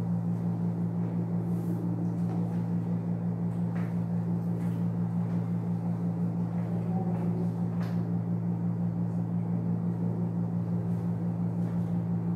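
Steady low electrical hum filling the room, with a faint, fast, even flutter and a few soft clicks.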